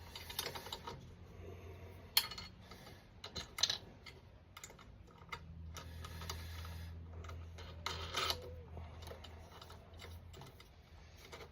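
Scattered light clicks and taps of a bolt and washers being handled and fitted to a drill-press jig, over a faint low hum.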